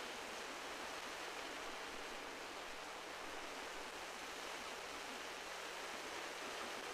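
Steady, even rushing wash of sea surf with no distinct breaks, over a faint steady low hum.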